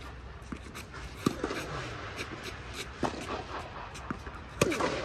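Tennis balls struck by rackets during a rally on a clay court: three sharp hits, the last the loudest, each with a hollow echo from the dome hall.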